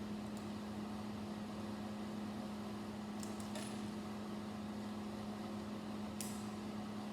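A steady low hum, with a few faint light clicks of plastic Lego pieces being handled about three and six seconds in.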